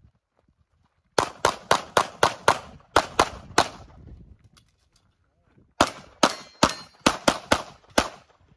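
Handgun shots at close range in two rapid strings: about eleven quick shots a second in, a pause of about two seconds, then about eight more near the end.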